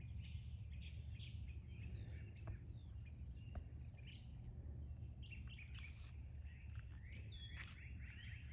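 Small birds chirping and calling in short repeated notes, busiest near the start and again near the end, over a steady high-pitched insect drone and a low outdoor rumble.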